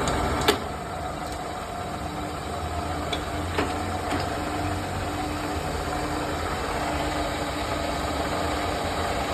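ARNO universal milling machine running with a steady motor and gearbox hum as the table moves on its Y-axis (cross) feed. A sharp click comes about half a second in, and a fainter one a few seconds later.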